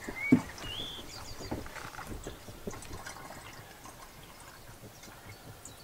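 Liquid being poured from a plastic jug into a plastic drink bottle: a faint trickle that fades toward the end, with one sharp knock about a third of a second in.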